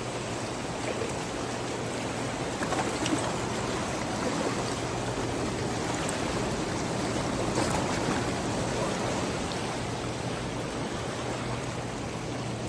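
Steady rush of turbulent water churning in the tailrace below a dam.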